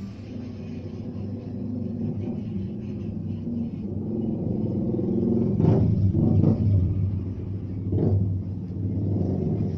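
Low, steady engine-like rumble that swells louder past the middle, with a few short sharp sounds about six and eight seconds in.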